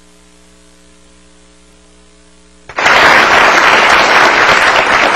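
A faint steady electrical hum, then, about three seconds in, a studio audience breaks into loud applause.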